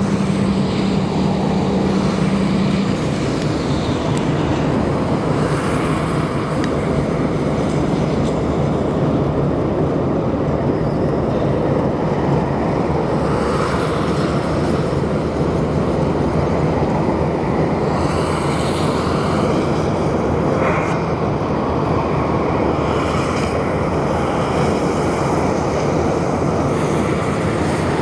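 Steady rumble of a moving train, with a low engine hum that stops about three seconds in.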